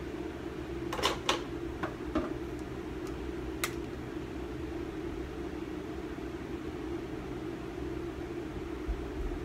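Steady low room hum with a few light clicks and taps in the first four seconds, from makeup tools and containers being handled.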